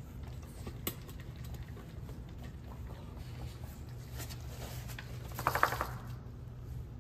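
French bulldog and puppies moving about on puppy pads, light scuffs and paw taps over a steady low hum; about five and a half seconds in, one of the dogs lets out a short, loud squeal.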